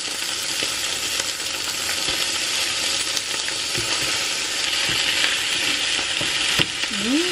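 Fried rice sizzling steadily in a hot non-stick frying pan as cooked rice is tipped in onto the browned chicken, onions and shrimp paste. It is then stirred with a plastic spatula, with a few light knocks and scrapes.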